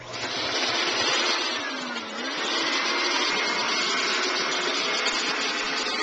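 Backpack vacuum cleaner switched on, its motor spinning up within about a second into a steady, loud rushing hiss with a faint high whistle.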